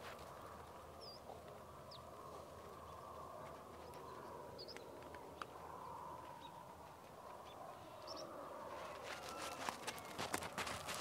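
Outdoor ambience: a steady wash of background noise with a few short, high bird chirps scattered through it. Near the end comes a quick run of sharp clicks and taps.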